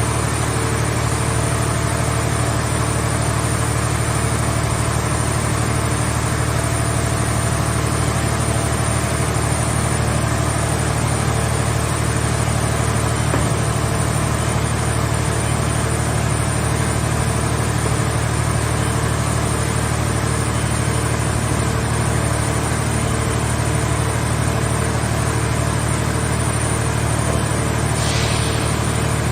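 Mobile hydraulic scrap-car baler's power unit running steadily with a low hum, with a brief hiss near the end.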